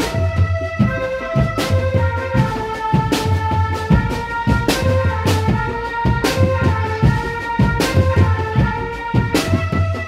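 Drum band music for a can macanan procession: a steady beat of drum and cymbal hits over a pulsing bass, with a melody line held above it.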